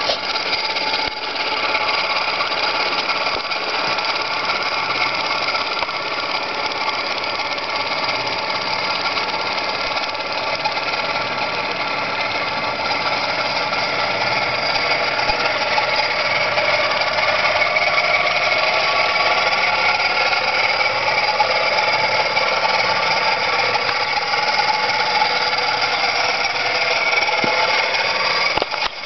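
Small model marine steam engine (a David Auld engine) running steadily under steam in a radio-controlled model boat, a continuous mechanical hum that rises slightly in pitch about halfway through.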